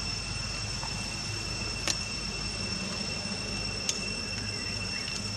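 Steady high-pitched insect drone, with two sharp clicks about two seconds apart over a low rumble.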